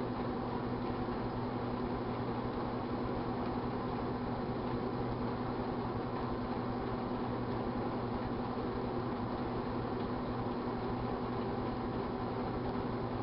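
1978 GE Dual Wave microwave oven running while it heats a glass of Pepsi: a steady low hum with fan noise that holds even throughout.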